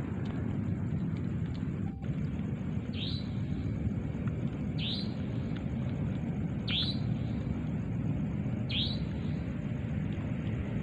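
A bird calling in the dark: a short high note that falls in pitch, repeated about every two seconds, five times. Under it runs a steady low rumble and a thin, steady high drone.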